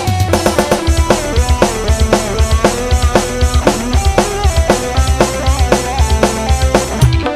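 Instrumental music with a busy drum-kit beat: rapid bass-drum and snare hits, several a second, under a melodic line.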